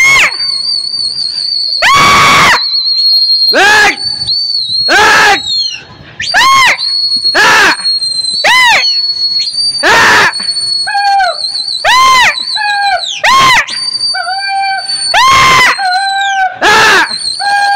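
A man's loud wordless calls: about a dozen rising-and-falling shouts, roughly one a second, to keep the pigeon flock flying. A steady high whistle sounds beneath them throughout.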